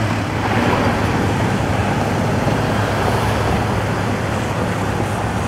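Steady road traffic noise over the low, even hum of an idling fire engine's diesel engine.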